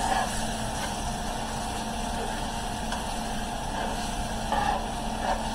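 Chicken and vegetable gravy cooking in a cast iron skillet on the stove: a steady hiss with a low hum beneath, and a few faint short sounds about four and a half seconds in.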